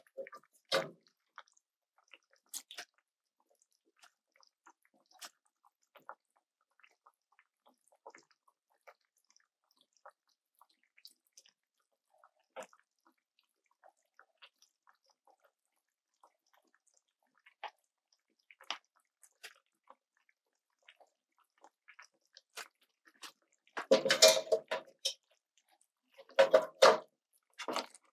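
Creamy coconut-milk sauce with shrimp and penne simmering in a pan, giving scattered small pops and clicks. Near the end come two louder bursts of wet stirring in the pan.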